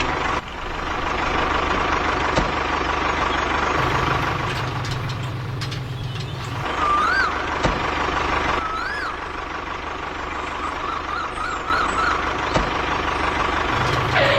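Small motor running steadily, with a constant high whine and a low hum that comes and goes. A few short warbling chirps are heard about seven and nine seconds in, and a quick run of them later on.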